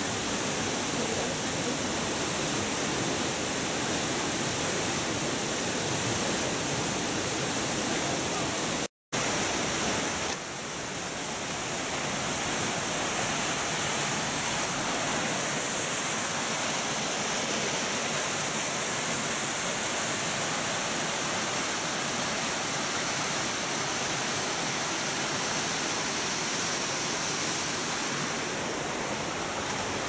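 Waterfall pouring into a rock plunge pool: a steady, even rush of falling water. It cuts out for an instant about nine seconds in, then carries on.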